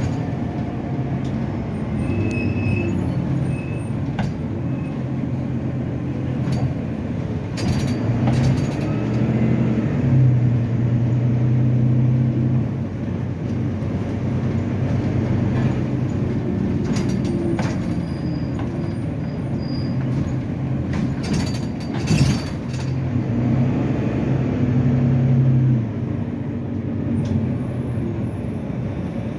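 Volvo B9TL double-decker bus's diesel engine running under way, its low note stepping up in pitch and dropping back several times as it pulls and changes gear, with a few sharp knocks and rattles.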